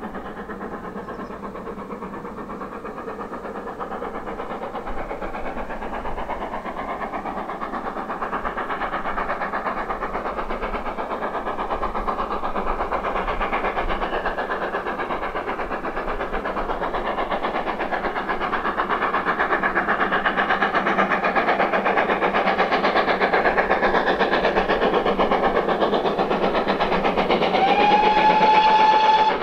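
Great Western steam locomotive working a train towards the listener, its chuffing exhaust beats growing steadily louder as it nears. Near the end its whistle sounds once, a short rise into a steady note lasting about a second and a half.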